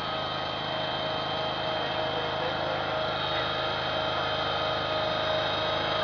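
An ATV engine running steadily, with a constant whine over it, getting a little louder near the end.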